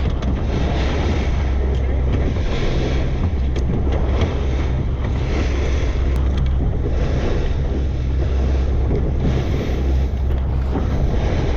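Boat engine running steadily with a low hum, under wind buffeting the microphone and the noise of the sea.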